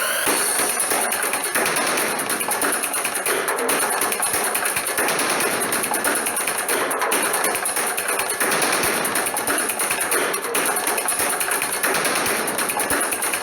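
Background music with a busy, fast tapping percussion beat.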